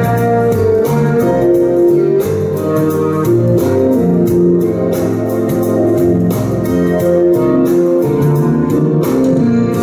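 Instrumental break of a pop ballad: keyboard chords and held notes over a steady drum beat, with no singing.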